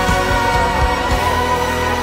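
A large choir singing together in harmony, with long held notes, over band accompaniment with a steady drum beat.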